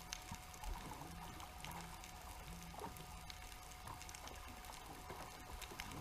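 Underwater ambient sound of a reef heard through a camera housing: a steady hiss scattered with sharp clicks and crackles, with faint short low hums repeating every half second or so.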